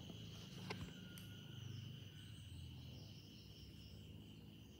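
Faint steady high-pitched trill of insects, with a low hum underneath and a couple of soft clicks near the start.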